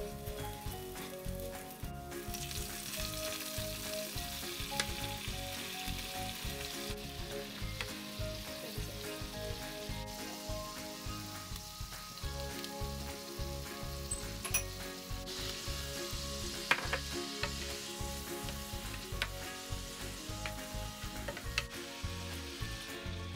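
Chopped garlic and chilli sizzling in hot oil in a frying pan, stirred with a wooden spoon. The sizzle swells louder for a few seconds at a time, with a few sharp ticks.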